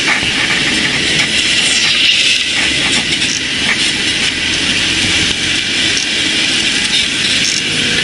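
Construction machinery at work: the diesel engine of a JCB backhoe loader running as it swings and digs with its bucket, with other site machines running behind it, a steady noisy din.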